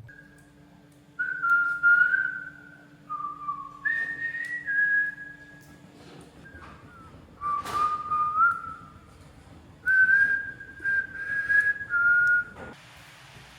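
A person whistling a tune: phrases of held notes that step up and down in pitch, with short pauses between phrases and a single sharp click partway through.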